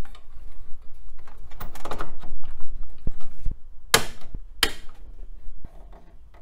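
Plastic clicks, knocks and rustling as a Pentium II processor cartridge with its heatsink is pushed down into its motherboard slot, with two sharp clicks about half a second apart around four seconds in.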